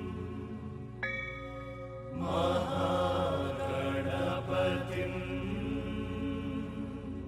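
Carnatic devotional music for Bharatanatyam: a solo voice chanting in long, wavering, ornamented notes over a steady drone. A sustained tone enters suddenly about a second in, and the voice takes over about two seconds in.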